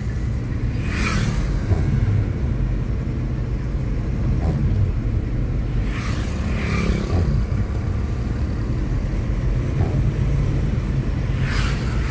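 Car cabin noise while driving on a wet road: a steady low engine and tyre rumble. The windshield wipers brush across the rainy glass a few times, about a second in, again around six to seven seconds in, and near the end.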